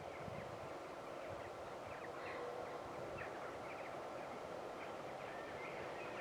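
Small birds chirping repeatedly, short scattered calls over a faint steady hum and background noise.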